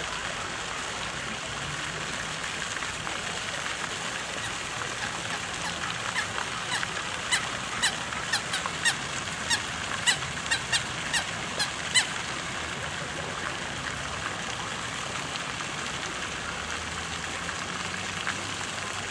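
Steady rushing outdoor water ambience at a pond. Around the middle, a quick run of about a dozen short, sharp clicks or chirps is heard.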